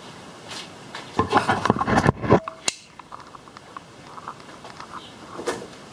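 Handling noise as the camera is picked up: about a second of rubbing and clatter, then one sharp click, followed by a few faint clicks.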